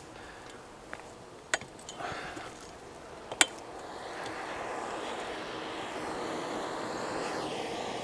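Sharp clanks and knocks of someone climbing an RV's ladder onto the roof, two loud ones about two seconds apart, over a steady rushing noise that grows louder in the second half.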